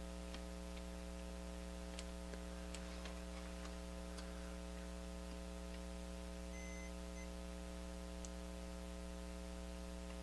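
Steady electrical mains hum with a ladder of overtones, broken only by a few faint ticks.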